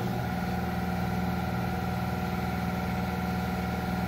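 Compressed air rushing from an air hose chuck held on a coreless valve stem, fast-filling a truck tire to seat its bead, with a steady low hum under the hiss.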